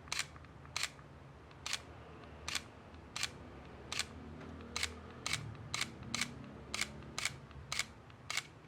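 Sony a6000 mirrorless camera's mechanical shutter firing again and again, about fourteen crisp single clicks at a slightly uneven pace of roughly one every half second to second. This is the shutter being test-fired after a service for a 'camera error' fault.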